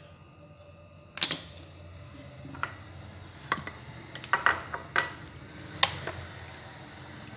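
A small glass bowl and a tablespoon clinking and knocking on a stone countertop as soy sauce is measured out: a sharp clink about a second in, then a string of irregular clinks and taps.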